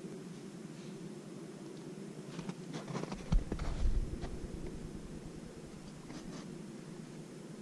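Scraping, crunching and clicking contact noises from a GoPro camera strapped to a reindeer as the reindeer lowers its head into the snow. The noises cluster in the middle, with a dull thump about three and a half seconds in, over a steady muffled hum.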